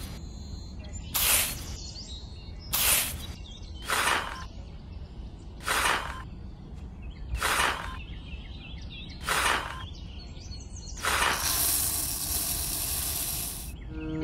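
Unhusked rice grains being scooped and poured with a small spoon, a short hissing pour about every one and a half seconds, seven times. Near the end comes a longer steady pour of grain lasting about three seconds.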